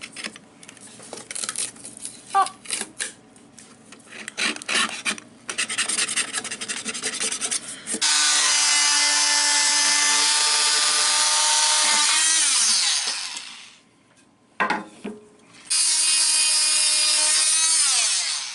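Razor-blade scraper scraping old sealant off a sink's drain flange in short rubbing strokes. About eight seconds in, a handheld electric saw starts cutting a pine board with a steady motor whine. The whine winds down after about five seconds, there is a short burst, and then a second cut runs for about two seconds and winds down again.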